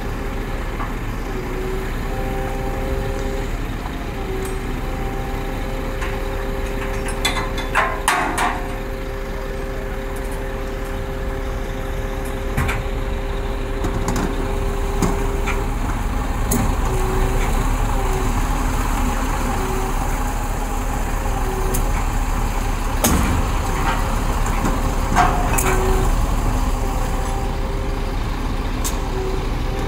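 Heavy trucks' diesel engines idling. A steady whine turns, about halfway through, into short beeps repeating roughly every second and a half, and there are a few sharp metallic clanks.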